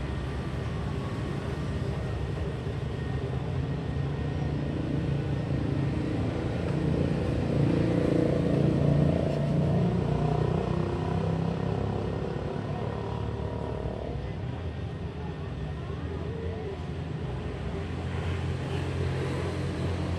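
Outdoor town-square ambience: a steady rumble of street traffic, swelling as a vehicle passes about eight seconds in, with faint voices.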